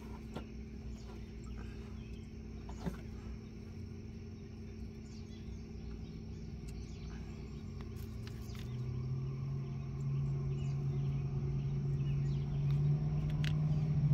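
A steady engine hum that grows steadily louder over the last several seconds, with a few faint clicks.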